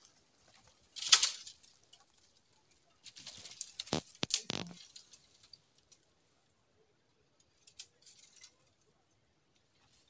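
Dry branches and brushwood crackling and snapping as they are pulled at by hand: a loud crackle about a second in, a longer stretch of rustling with a few sharp snaps around four seconds in, and a few faint crackles near the end.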